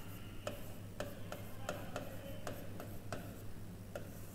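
Light, irregular clicks of a pen tip tapping and scratching on a digital writing board as a word is written, several a second, over a steady low electrical hum.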